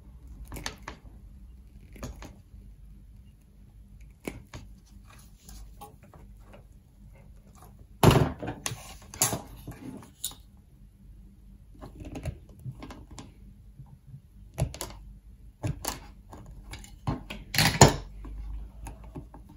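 Utility knife cutting a notch out of 300-ohm ladder line on a wooden chopping board: irregular clicks, scrapes and knocks, loudest about 8 seconds in and again near the end.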